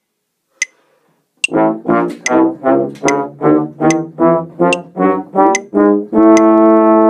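Trombone and tuba playing the concert chromatic scale in unison to a metronome's steady clicks: about a dozen short notes, two to each click, then a long held note near the end.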